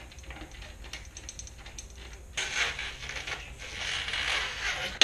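Ratchet clicking during rear-wheel removal on a BMX bike. Evenly spaced clicks give way about halfway through to a faster, louder run of clicking, ending in a sharp knock.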